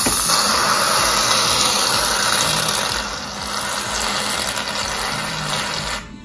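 Aerosol can of shaving cream spraying foam into a glass: a steady hiss that dips briefly about three seconds in, then resumes and stops just before the end.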